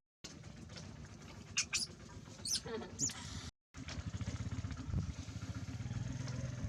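Bulldozer's diesel engine running with a fast, even pulse. A few short high-pitched squeaks come over it about one and a half to three seconds in, and the sound drops out briefly twice.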